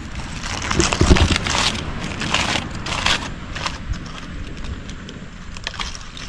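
Scissors cutting through roasted fish: a run of crackling, crunching snips, densest in the first half and thinning out after.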